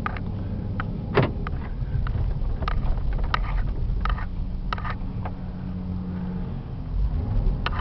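Cabin sound of a 2004 Hummer H2 with its 6.0-litre V8 on the move: a steady low rumble of engine and road noise, with scattered sharp clicks and knocks.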